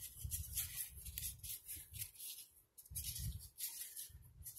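Molded cardboard egg carton rustling and scraping as hands flatten and shape a torn piece, in irregular bursts with two brief pauses.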